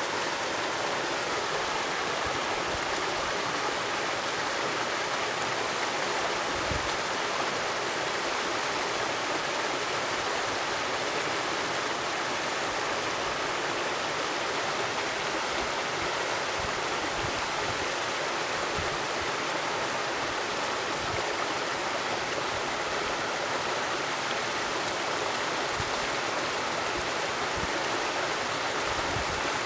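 Small waterfall spilling down a rock chute into a pool: a steady rush and splash of falling water.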